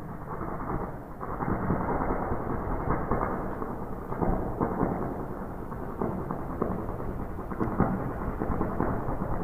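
A dense, muffled rumbling noise with constant crackling, swelling about a second in and then holding steady.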